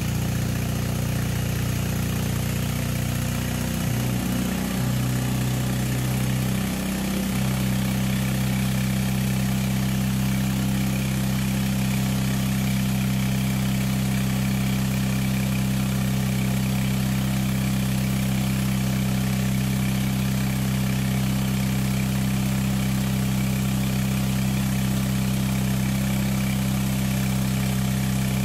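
Homebuilt air compressor made from a converted engine, running steadily at idle with a low hum. Its pitch shifts and settles a few seconds in, with a brief dip in level. A steady hiss runs throughout.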